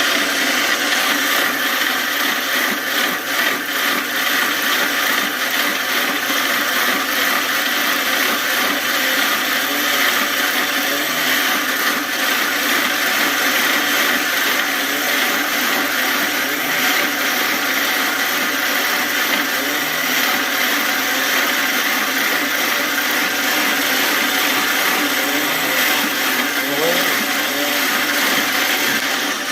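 A 1600-watt commercial mixer grinder running continuously, its motor and stainless steel blades giving a loud, steady whirring whine.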